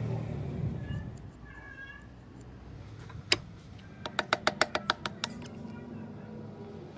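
A hammer tapping a wooden wedge down into the slotted top of an axe handle seated in the axe head's eye: one sharp tap, then a quick run of about ten lighter taps.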